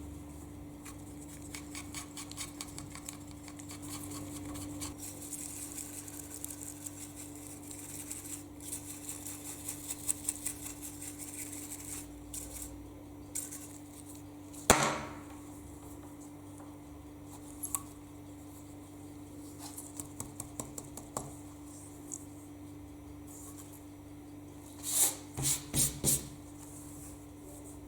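Hand-tool work on small metal doorbell parts: light scraping and fine ticking over a steady low hum, with a single sharp knock about 15 seconds in and a quick run of four or five louder knocks near the end.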